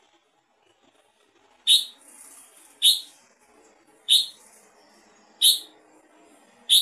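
Red-whiskered bulbul giving five short, sharp chirps, one about every 1.2 seconds.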